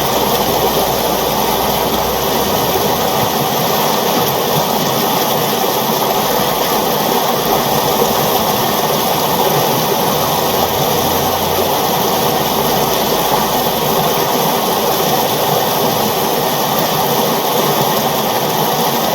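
A river flowing, a steady, even rush of water with no breaks or changes.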